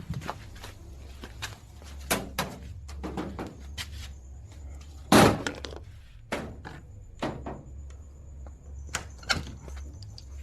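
Irregular knocks and thuds, with one louder, longer crash about five seconds in.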